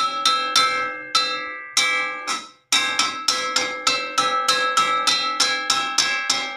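Metal wok (wajan) being struck over and over, each hit ringing like a bell, about three to four blows a second. The ringing fades out and stops briefly about two and a half seconds in, then the strikes start again.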